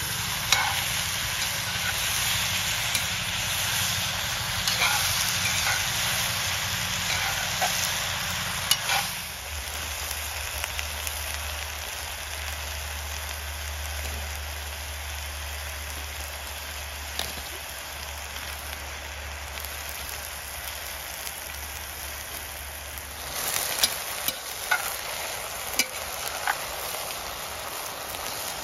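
Pork, okra and vegetables sizzling in a cast-iron pot over a campfire, with a metal spoon scraping and clicking against the pot as the food is stirred. The clicks come more often near the end.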